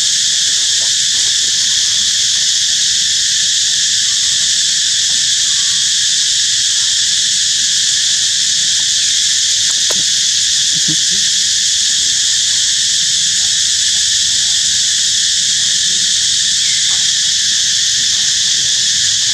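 Loud, steady chorus of insects, a dense unbroken drone that does not change, with a faint click about ten seconds in.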